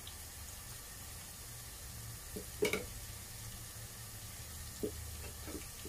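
Sliced onions and green chillies frying in hot oil in a pan, a soft steady sizzle with a low hum underneath. A few short clicks sound over it, the loudest about halfway through.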